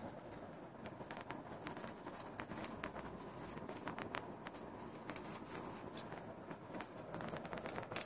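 Irregular light taps and clicks of a kitten's paws and claws on a tiled floor as it wrestles with a satin ribbon, over a faint steady hiss.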